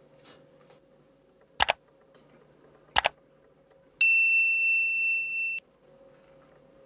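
Subscribe-button animation sound effects: two mouse clicks about a second and a half apart, then a bright notification-bell ding that rings for about a second and a half and cuts off suddenly.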